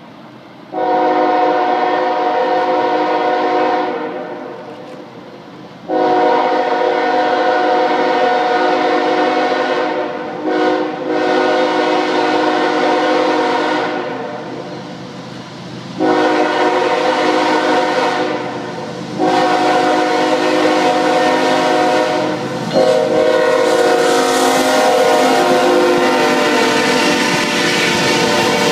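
Multi-note air horn of a Norfolk Southern diesel freight locomotive, sounded in two rounds of long, long, short, long blasts, the grade-crossing signal. Under it the train's engine and wheel noise grows as it climbs the grade, and near the end the locomotives pass close by.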